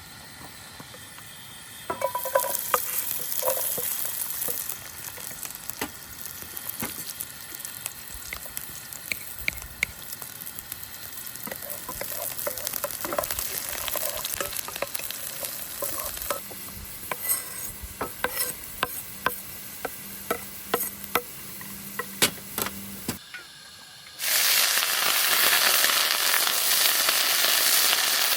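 Food frying and sizzling in a pan, with scattered clicks and clinks from a utensil, in a few short cuts. The sizzle is loudest and most even in the last few seconds.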